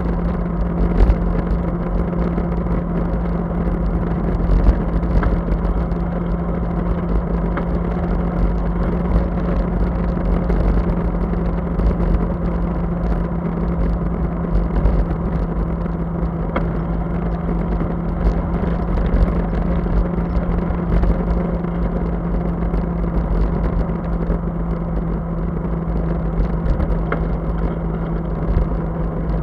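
Steady wind rush over a bicycle-mounted camera's microphone while riding, mixed with tyre noise on wet asphalt. A steady low hum runs underneath.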